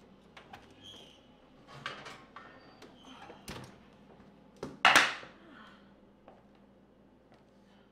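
Kitchen handling sounds: an oven door and ceramic baking dishes knocking and clinking as a dish is taken from a wall oven and set down on a granite countertop, with one loud clunk about five seconds in.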